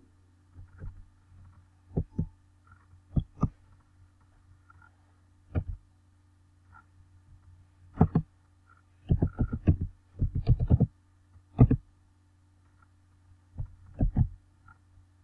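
Computer keyboard keys clicking as text is typed: scattered single keystrokes and a quick run of strokes about nine to eleven seconds in, over a steady low hum.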